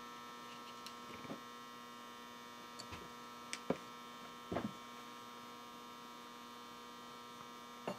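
Steady electrical hum with a faint high whine above it, and a few faint clicks and taps as wires and small parts are handled.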